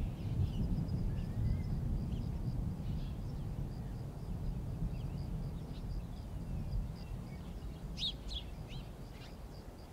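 Woodland ambience: birds chirping with a high note repeated over and over, and a cluster of sharper calls about eight seconds in, over a low steady rumble. The whole fades gradually quieter.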